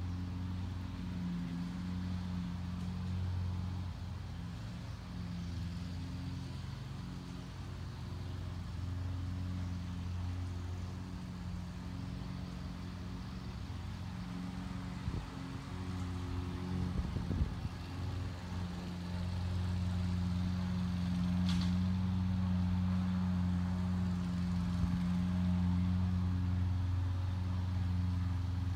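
Jeep Wrangler engine idling steadily, an even low hum. A few faint knocks come a little past halfway.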